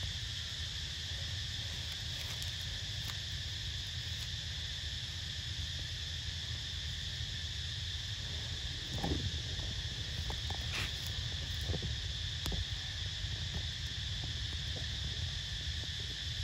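Steady high-pitched insect drone of a tropical forest, with a low rumble underneath. A brief falling call about nine seconds in, followed by a few faint clicks.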